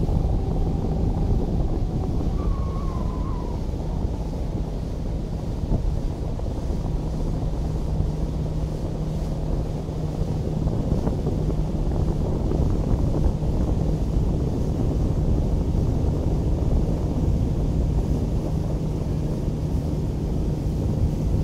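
Speedboat engine running steadily under heavy wind noise on the microphone, its low hum settling about a third of the way in.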